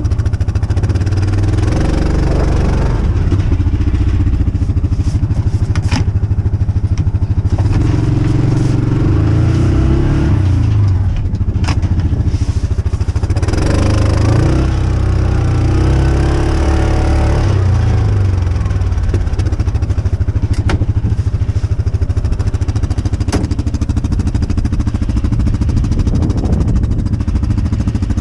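A farm vehicle's small engine running close by, its revs rising and falling several times as it is driven, with a few sharp clicks and clatters.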